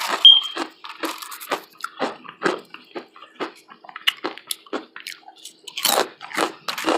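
A person chewing food close to the microphone: wet smacking and squishing chews, about two a second, with a short pause after about five seconds.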